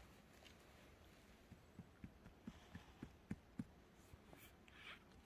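Near silence with a few faint ticks and light scrapes, fingers clearing soil and needles from around a young cep (Boletus edulis) on the forest floor.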